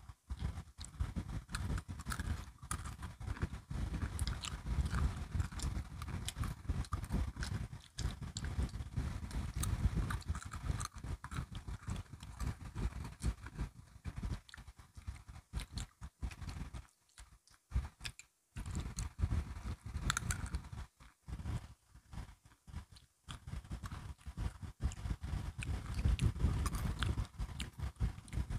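Close-miked crunching and chewing of crisp biscuit sticks, bite after bite in an irregular run of crackly clicks, with a few brief pauses about two-thirds of the way through.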